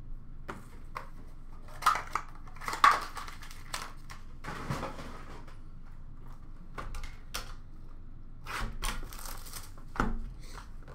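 Hobby card boxes and cases handled on a glass counter: scattered sharp clicks and knocks, the loudest about two and three seconds in, with a brief rustle of cardboard packaging around the middle.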